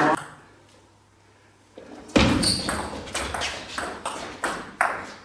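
Table tennis rally: the plastic ball clicking sharply off the bats and the table in quick alternation, a few tenths of a second apart. The clicks start about two seconds in, after a brief hush.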